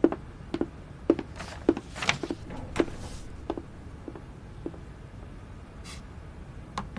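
Footsteps of hard-soled dress shoes walking away across a wooden floor, a steady step a little under twice a second, fading out after about four and a half seconds. A soft rustle comes around two seconds in, and a single click near the end.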